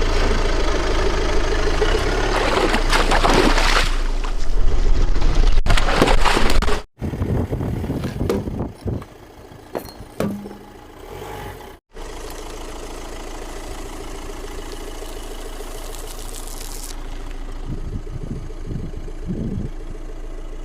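Car engine running as the car rolls over objects, with a loud grinding, crunching stretch first, then several sharp cracks and pops in the middle, and a steady engine hum to finish. The sound breaks off suddenly twice between clips.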